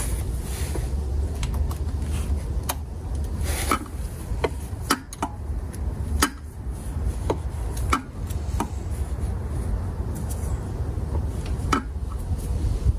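Sharp metal clinks of a socket wrench and extension on the nuts of an intake manifold as it is bolted to the engine. They come singly at irregular intervals, about one a second.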